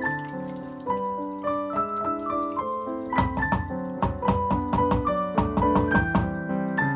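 Background piano music, a gentle melody of struck notes. From about three seconds in, a quick run of short clicks or taps joins it for a few seconds.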